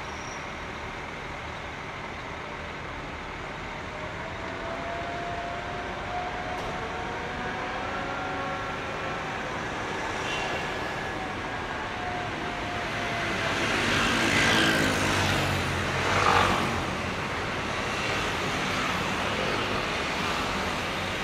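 Heavy vehicle engine running steadily, with a faint whine that slowly rises and falls in pitch; the sound swells louder about two-thirds of the way through.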